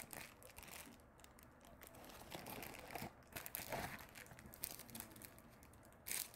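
Faint crinkling and rustling of a parcel's packaging being opened by hand, in short scattered bursts with a louder rustle near the end.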